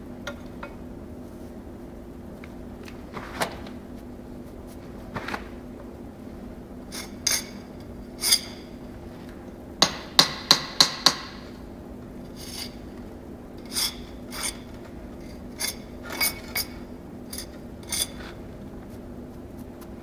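Steel bricklaying trowel tapping a cut brick into place in a brick arch: scattered sharp taps, with a quick run of about six near the middle, over a steady low hum.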